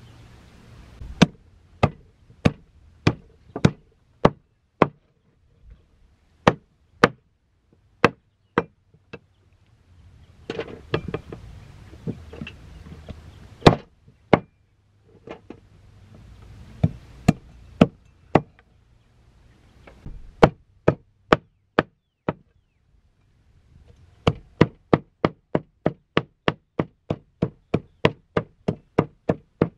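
A blade chopping on a wooden board: a long series of sharp blows, about two a second, with a few short scraping pauses, then a faster run of about three a second near the end.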